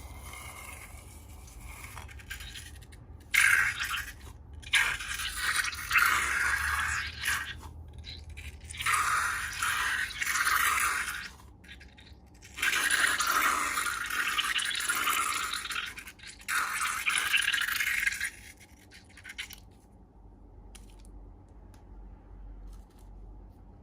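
Slime being handled and mixed, heard as several noisy scraping stretches of one to three seconds each, then much fainter for the last few seconds.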